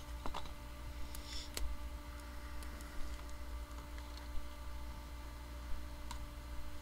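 Scattered faint clicks and a short rustle about a second and a half in, from hands handling mail packaging, over a steady low electrical hum.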